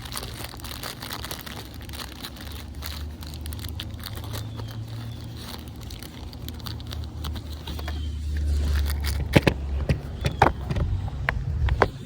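Low steady rumble that swells about eight seconds in, with scattered clicks and crackles of small parts and packaging being handled, sharper and more frequent near the end.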